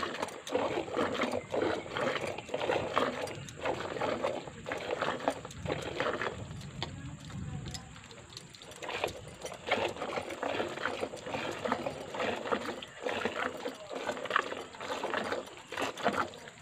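Milk squirting into a steel bucket as a cow is milked by hand, in a steady rhythm of a few squirts a second, with a pause of about two seconds in the middle.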